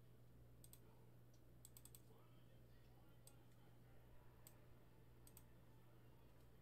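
Near silence with a steady low hum, broken by faint scattered clicks of a computer's mouse and keys, a few coming in quick little groups.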